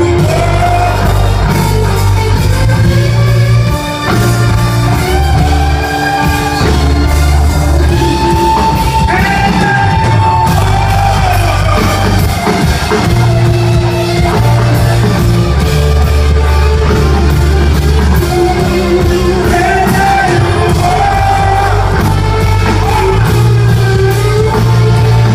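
Music: a song sung over guitar and a steady bass line, loud throughout.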